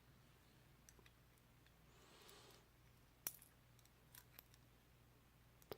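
A few faint, sparse small metal clicks as driver pins are taken out of a padlock core, the sharpest about three seconds in, with a soft faint rustle shortly before it.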